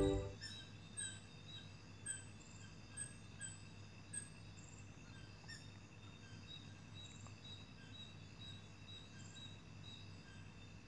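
Faint night-time wildlife ambience: short chirping calls repeat about once a second, with a quicker run of higher chirps later, over a steady low hum.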